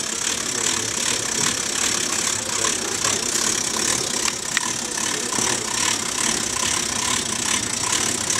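Hand-cranked fuel dispenser being turned steadily, its pump mechanism clattering in an even rhythm as fuel is pumped.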